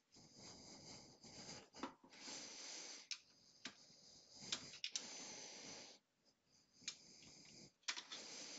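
Faint handling sounds: soft rustles and a few light, sharp clicks as an Ethernet cable is worked loose from the back of a protection relay.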